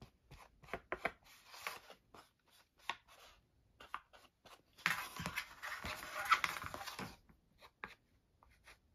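Black ink pad dabbed and rubbed along the edges of a cardstock cutout. A run of light taps is followed by about two seconds of scratchy rubbing, starting about five seconds in.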